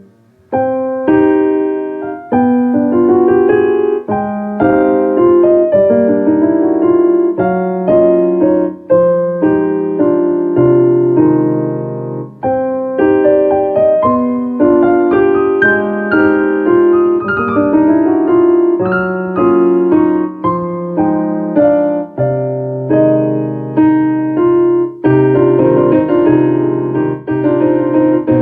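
Solo piano playing a melody over lower bass notes, with a brief break about half a second in before the playing resumes.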